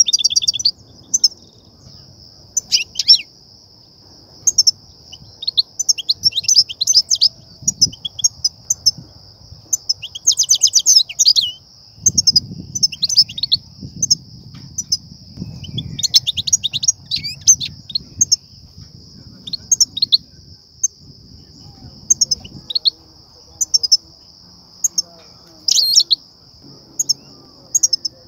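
European goldfinches calling: short bursts of rapid, excited twittering chirps, repeated every second or two.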